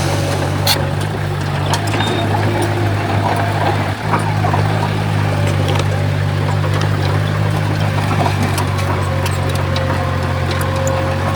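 Bulldozer diesel engine running at a steady low drone, with scattered light clicks and knocks over it.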